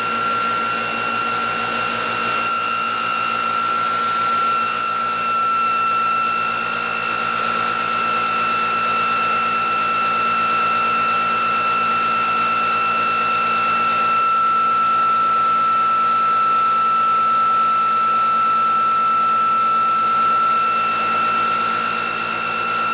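Electric motor-and-generator test rig (the ReGen-X Quantum Motor setup) running steadily at speed, with an even high-pitched whine.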